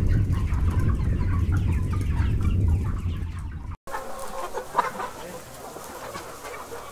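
A flock of chickens clucking and calling. In the first half, white broiler chickens call over a low rumble. After a sudden break about four seconds in, brown laying hens cluck more quietly.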